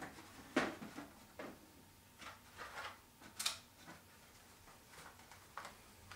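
Carded action figures, cardboard backs with plastic blisters, being lifted down from the wooden shelves of a display cabinet: a scatter of short light knocks and clacks with handling rustle, the sharpest a little past the middle.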